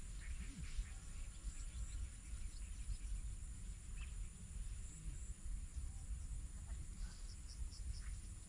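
Rural waterside ambience: insects with a thin steady high tone and a few short, high bird chirps, a small group of them about seven seconds in, over a steady low rumble.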